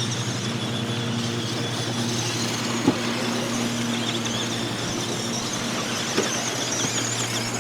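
Electric RC wheelie cars running on a dirt track, their motors whining over a steady low hum, with a sharp knock about three seconds in and a smaller one about six seconds in.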